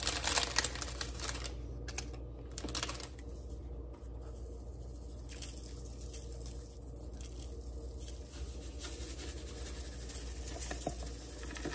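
A run of quick clicks and scrapes for about the first three seconds, then fainter light shaking and tapping as dried herbs and salt are shaken from jars into a stainless pressure-cooker pot, over a steady low hum.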